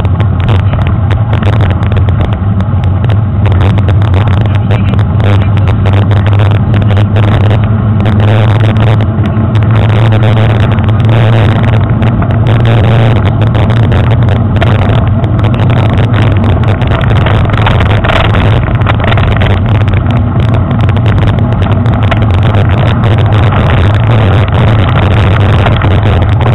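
Mountain bike riding over a dirt trail, heard through a handlebar-mounted action camera: a loud, steady rumble of wind and vibration with constant small knocks and rattles from the bumps.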